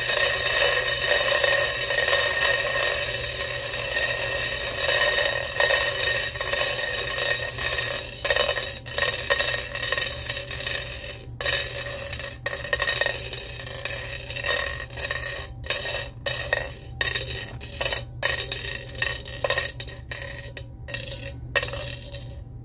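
Metal sewing-machine bobbins rattling and clinking against a metal pot as they are shaken about and the leftover thread comes off them. A dense, continuous clatter that thins out after about eight seconds into separate clinks with short gaps between them.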